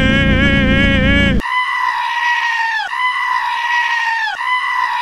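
A sportbike engine running at high revs, its pitch wavering slightly. It cuts off abruptly about a second and a half in, and three long, loud sheep bleats follow one after another, each dropping in pitch at its end.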